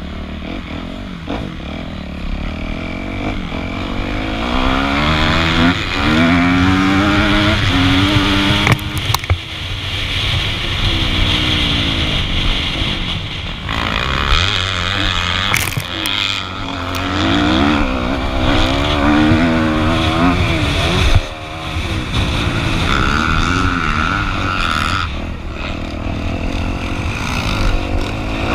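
Kawasaki KX250F single-cylinder four-stroke motocross engine heard from on the bike, revving hard and dropping back again and again as the rider accelerates, shifts and brakes around a dirt track.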